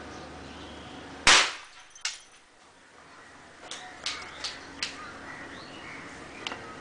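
A homemade plug-and-screwdriver bomb going off with one loud sharp bang, then a smaller crack. A few seconds later come four quicker, smaller pops and one last pop near the end.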